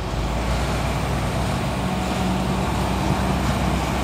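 Intercity bus's diesel engine running steadily with a low drone.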